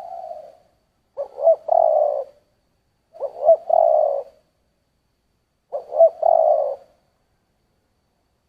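Spotted dove cooing in the deep 'thổ' voice type: the end of one phrase, then three full phrases about every two and a half seconds, each a couple of short notes running into a longer, drawn-out coo.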